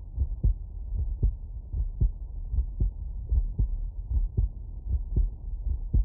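Normal human heartbeat heard through a stethoscope: a steady lub-dub rhythm of about 75 beats a minute, each beat two dull thumps close together.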